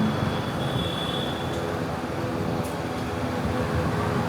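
Yamaha MT-15's single-cylinder engine running steadily at low speed, an even throb.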